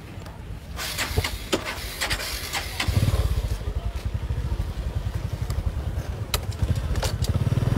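A motorcycle engine comes in about three seconds in and runs steadily with a low, even pulsing. Before it there are scattered clicks and rustling.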